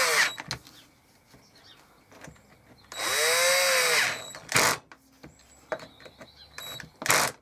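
Cordless drill-driver driving screws to fasten the carburettor assembly onto a two-stroke hedge trimmer, in short runs. One run ends just after the start, a longer one about three seconds in winds up and then down in pitch, and two brief blips follow, one a little later and one near the end.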